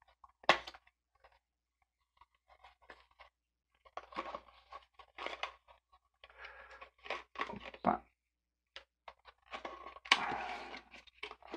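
Stiff clear plastic retail pack of a laptop RAM module crinkling and crackling as it is handled and pried open by hand. The crackling comes in three clusters with quiet gaps between them.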